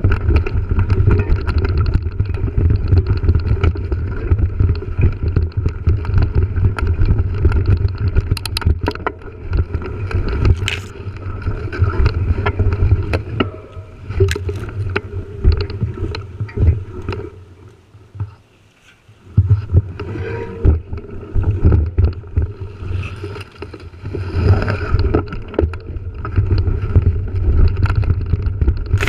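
Mountain bike ridden over a rough grassy dirt trail, heard from a camera on the rider or bike: a steady low rumble of wind and riding noise on the microphone with frequent rattles and knocks from the bike over bumps. The noise drops away for a moment about two thirds of the way through as the bike slows almost to a stop, then picks up again.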